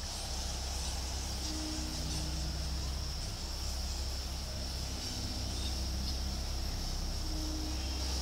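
A steady, high-pitched insect chorus over a constant low hum.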